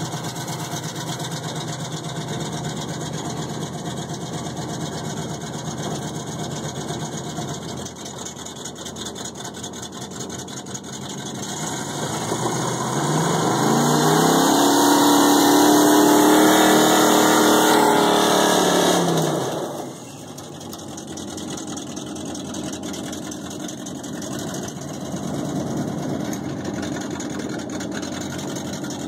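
Chevy pickup engines idling; about halfway through, one revs up hard and holds high revs for about six seconds with tyres spinning in the gravel, then drops off suddenly back to idle.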